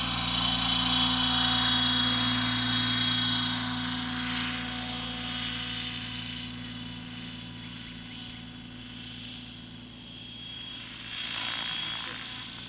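Align T-Rex 800 radio-controlled helicopter in flight, a steady rotor and motor whine that fades as it moves off and grows louder again near the end.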